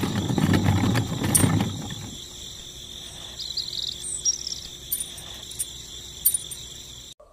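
Outdoor ambience: insects buzzing steadily, with a few short bird chirps in the middle. A low rustling noise fills the first two seconds.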